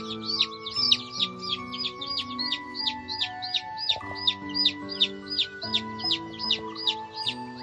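A steady run of high peeps, each rising then falling, about three a second, like a chick peeping continuously, over background music of held chords.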